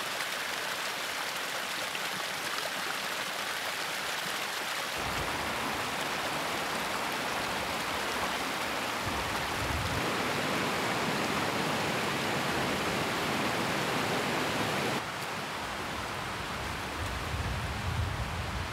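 Mountain creek cascading over rocks: steady rushing water that changes abruptly in tone about every five seconds, with some low rumbling near the end.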